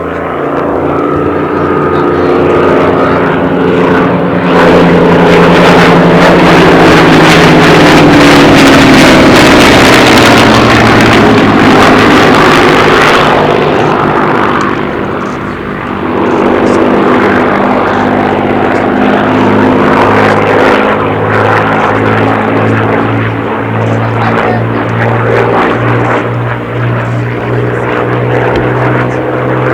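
Propeller-driven fighter's Rolls-Royce Merlin V12 engine at a flying display, loud as the aircraft passes close with its pitch falling as it goes by. The sound dips about halfway through, then the engine comes back up and holds a steady drone.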